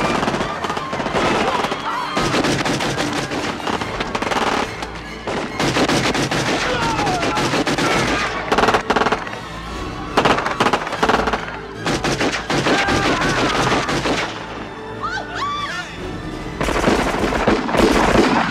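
Film action soundtrack: bursts of rapid automatic gunfire, densest about halfway through and again near the end, with people screaming and orchestral score underneath.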